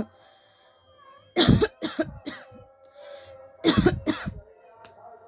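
A woman coughing deliberately, with no cold, in two short bouts of several harsh coughs each, the first about a second and a half in and the second near the middle.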